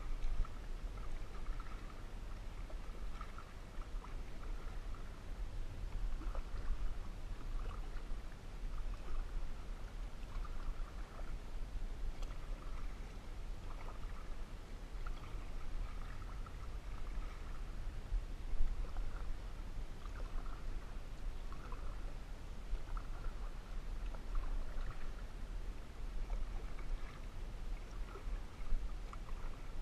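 Canoe being paddled: water swishing and trickling around the paddle and hull in short, irregular splashes, over a steady low rumble.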